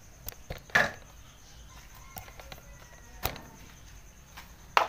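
A handful of short, sharp clicks and knocks from handling around the scooter's rear shock, the loudest about a second in and near the end.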